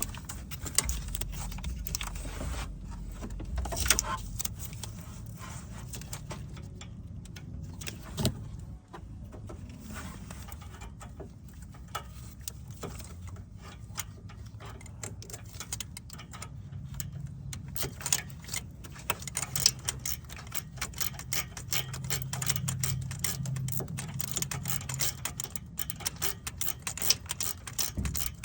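Metal hand tools clinking and clicking against car parts during engine-bay work, with quicker runs of clicks in the last third, over a low steady hum.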